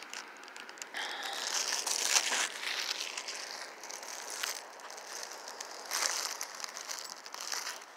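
Irregular rustling and crackling handling noise from a phone's microphone being rubbed as the phone is carried and moved about, in surges about a second in and again near six seconds.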